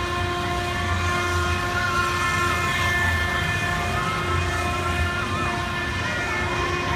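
Scrambler-type fairground ride running: a steady mechanical hum with several constant tones, and a low rumble that swells and fades every second or two as the cars swing around.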